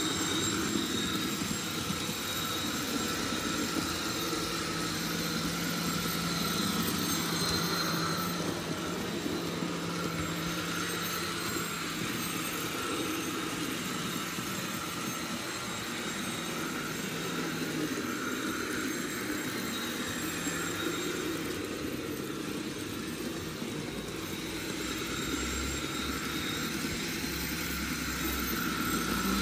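Zimo digital sound decoders in a pair of model Class 180 Adelante diesel multiple units playing steady diesel engine running sound through the models' small speakers as the trains move.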